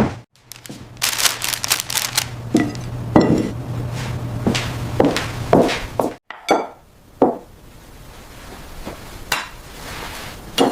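Dishes, glasses and cutlery clinking and clattering, with a steady low hum underneath for about the first six seconds that then cuts off, leaving a quieter stretch with a few scattered clinks.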